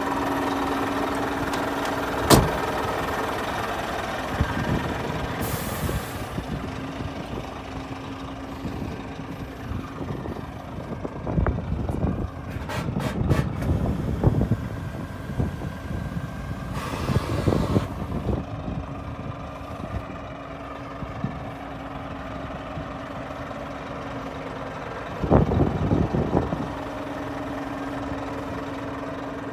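Scania P 400 truck's diesel engine idling steadily. A sharp click comes a couple of seconds in, short hisses of air sound around six and seventeen seconds in, and a cluster of knocks comes near the end.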